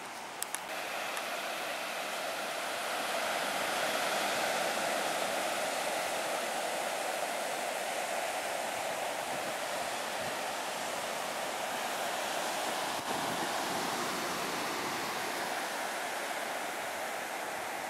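Ocean surf breaking on a sandy beach: a steady rushing wash of waves that swells a little louder about three seconds in. Two short clicks sound about half a second in.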